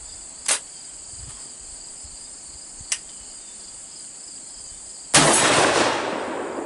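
A Fed Arm SS12 single-shot break-action 12-gauge shotgun fires once about five seconds in, the blast trailing off over about a second and a half. Before it, two small clicks come as the gun is closed and readied. A steady high insect buzz runs underneath.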